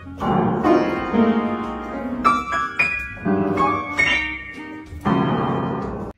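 Gulbransen upright piano keys pawed by a cat: irregular clusters of notes struck a few at a time, about once a second, each left to ring. The playing cuts off abruptly near the end.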